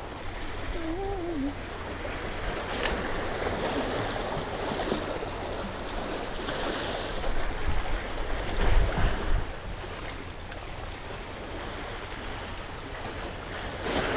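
Sea water washing and sloshing against the rocks of a stone jetty, with wind rumbling on the microphone that grows stronger about halfway through.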